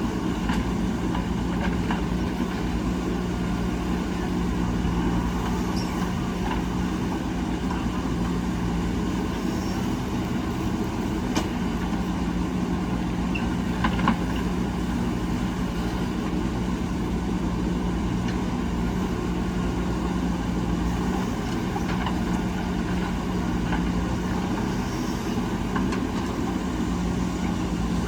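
Heavy diesel engine of earthmoving machinery running steadily at an even pitch, with a couple of brief sharp knocks about eleven and fourteen seconds in.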